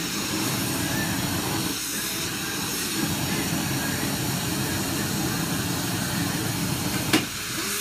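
Steady rushing mechanical noise, unbroken throughout, with one sharp click a little past seven seconds in.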